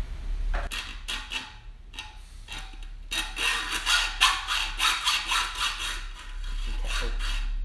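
Hacksaw cutting a slot into the steel stud of a drilled-out disc-rotor bolt in a bike wheel hub, so it can be turned out with a flathead bit. A few light strokes at first, then a steady run of quick back-and-forth strokes from about three seconds in, stopping near the end.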